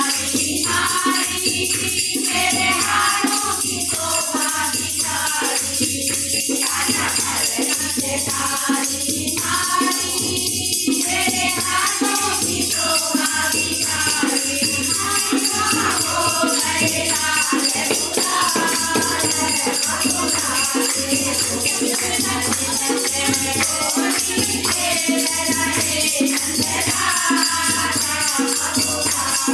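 A group of voices singing a devotional bhajan together over a steady percussion beat.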